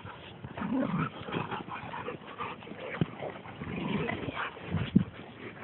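A dog making soft whimpering noises, with a couple of sharp knocks about three and five seconds in.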